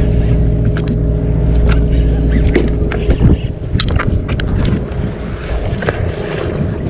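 Boat engine running with a steady low hum, over scattered sharp knocks and clicks; a louder knock comes about three seconds in, and the low hum drops away soon after.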